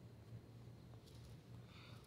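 Near silence: a faint steady low hum of background noise, with a faint click and a brief soft hiss.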